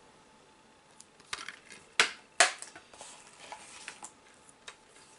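Plastic DVD case being handled: a series of sharp clicks and clacks as the case and its disc holder are opened and turned, the two loudest about two seconds in, half a second apart.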